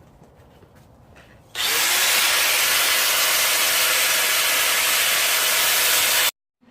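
Angle grinder with a cutoff wheel spinning up and cutting through steel rebar: a loud, steady grinding hiss that starts suddenly about a second and a half in and cuts off abruptly near the end.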